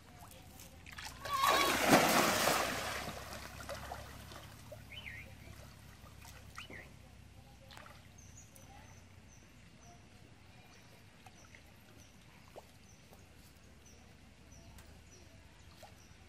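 A thrown cast net hitting the river surface: a loud splash about a second in that fades over the next two seconds as the weighted net sinks. Afterwards only faint water movement, with a faint high chirp repeating about twice a second in the second half.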